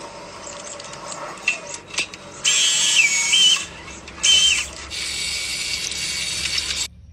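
A few small clicks, then a small electric motor whirring in two short bursts, each with a whine that steps up and then down in pitch. It then runs steadily for about two seconds and cuts off suddenly near the end.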